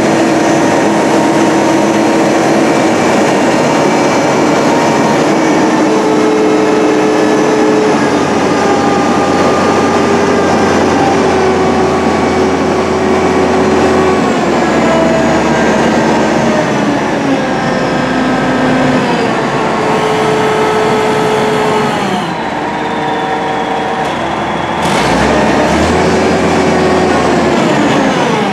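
Truck crane's diesel engine running at working speed, its pitch stepping up and down several times as it is throttled, with a falling glide near the end.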